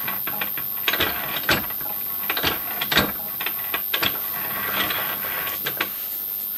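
Single-point slotting tool being pushed in and out of a cast iron gear's bore on a lathe to cut a keyway, each stroke scraping and clicking as it shaves metal from the slot. The strokes come unevenly, roughly one or two a second, with a steady hiss between.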